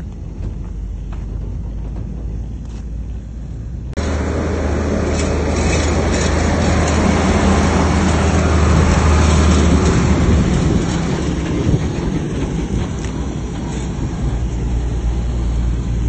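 Heavy diesel earthmoving machinery running with a low steady rumble. About four seconds in, the sound jumps to a louder engine drone with a broad rushing, rattling noise over it that swells and then eases off.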